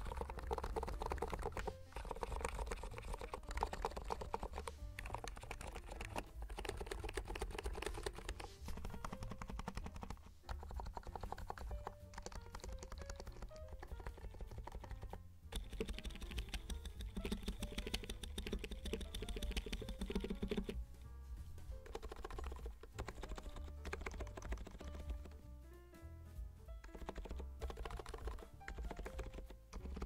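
Fast typing on a NIZ Atom68 electro-capacitive keyboard, a dense run of keystrokes, over background music.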